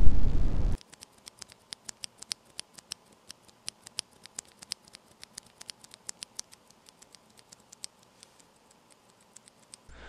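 Cherry MX Brown tactile, non-clicky mechanical key switch with a keycap, pressed and released over and over close to a microphone: a quick run of light, quiet clacks, several a second, thinning out and fading after about seven seconds.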